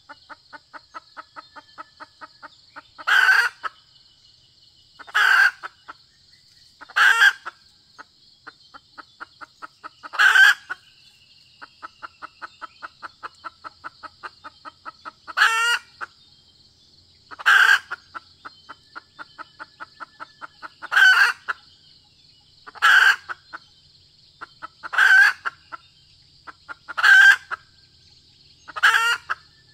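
Red junglefowl calling: a fast, even run of soft clucks, about four a second, broken by a loud short call every two seconds or so, eleven in all.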